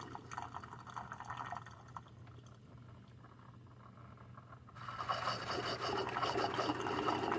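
Single-serve coffee maker brewing, with hot coffee dribbling and sputtering into the cup over a low steady hum. The flow dies down over the first couple of seconds, goes nearly quiet, then picks up again abruptly near the end.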